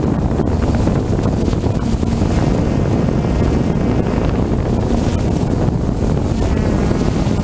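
Steady wind rumble buffeting the microphone of a camera carried aloft by a flying drone, with a faint high whine from the drone's spinning propellers.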